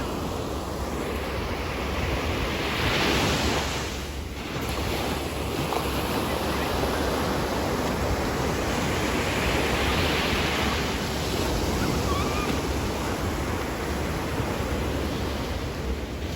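Ocean surf: waves breaking and washing in, with two louder washes about three seconds in and again near ten seconds, and wind buffeting the microphone with a low rumble.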